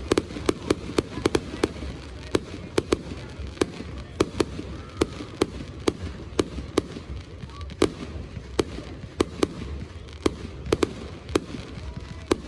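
Fireworks going off: sharp pops and bangs at an irregular rate of about two or three a second over a steady low rumble.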